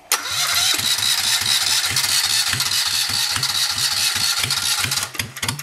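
Yanmar 2GM two-cylinder marine diesel cranked by its electric starter on a cold start without preheating: an even chugging at about four to five compression pulses a second over a steady starter whine, stopping suddenly after about five seconds without the engine catching. It needs a little more throttle to fire.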